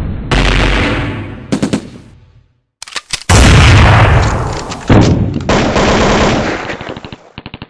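Battle sound effects of gunfire. Three loud blasts with long fading tails come a third of a second in, at about three and a half seconds and at about five seconds. Short clusters of rapid shots fall between them, and a fast machine-gun burst comes near the end.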